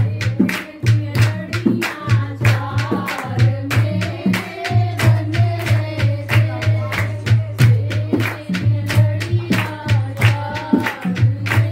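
Music: a song with a singing voice over a fast, steady beat.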